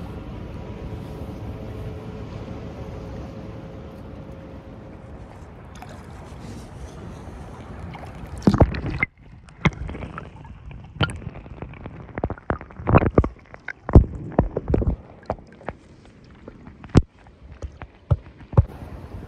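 Steady rushing noise, then from about halfway on a run of loud, sharp, irregular knocks and clatters.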